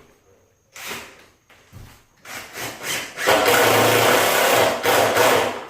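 Power drill driving screws through a replacement window's frame: a short burst about a second in, a few brief bursts, then a steady run of about two and a half seconds that stops near the end.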